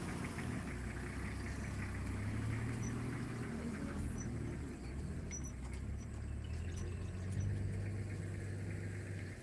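Vehicle engine idling: a steady low hum with a few faint high ticks.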